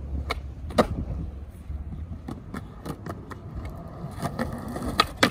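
Skateboard wheels rolling over rough concrete with a low rumble, broken by sharp clacks of the board, the loudest a little under a second in and again near the end.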